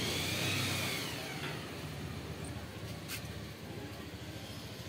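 A vehicle passing on a nearby road, its noise fading after about a second and a half with a faint falling whine, then a lower steady traffic haze. One sharp click about three seconds in.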